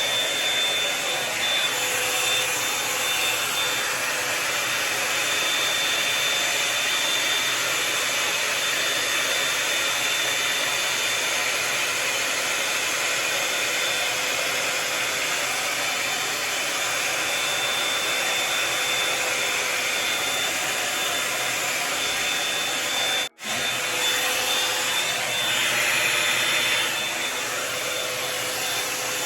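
Revlon One-Step hot-air dryer brush running steadily: a continuous rush of blown air with a high motor whine. It drops out for an instant about 23 seconds in and carries on.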